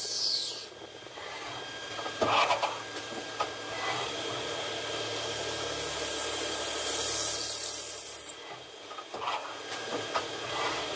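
CNC lathe cutting a brass workpiece: a drill cutting with a steady rasping hiss that builds over a few seconds and cuts off suddenly about eight seconds in, over a faint steady machine whine, with a few short scraping knocks.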